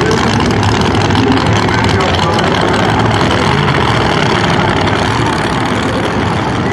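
Pro Nitrous drag car's nitrous big-block V8 engine running loud and steady after its burnout, with no hard launch or big revving.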